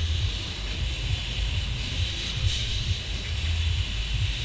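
Rider's-eye sound aboard a Maxi Dance fairground ride in motion: a fluttering low rumble with a steady hiss above it.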